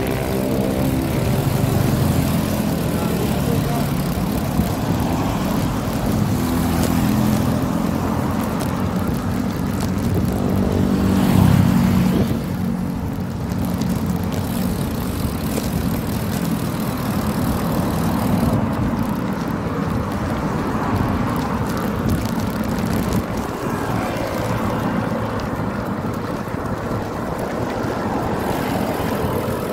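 Wind on the microphone and road noise while riding a road bike along a road with motor traffic. A passing vehicle's engine swells to the loudest point about eleven seconds in, then eases off.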